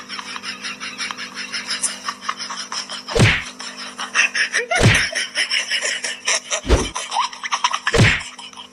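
Four heavy thwacks about 3, 5, 7 and 8 seconds in, over a busy backdrop of rapid ticking and a steady hum.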